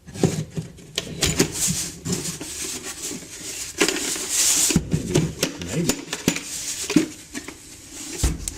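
Plastic air filter housing being handled: its tabs knock and click against the housing, with scraping and rubbing, as they are worked into their slots.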